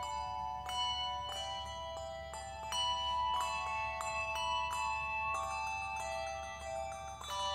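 A handbell choir ringing a slow melody in chords. Bells are struck about twice a second, each ringing on under the next.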